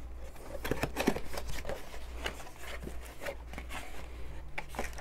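Cardboard box being opened by hand: flaps lifted and packaging handled, a run of light scrapes, rustles and taps.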